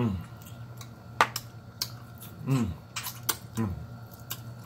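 Close eating sounds of a man sucking and chewing on a pork neck bone: sharp lip-smack and sucking clicks, the loudest a little over a second in, with three short low hums that fall in pitch while he chews.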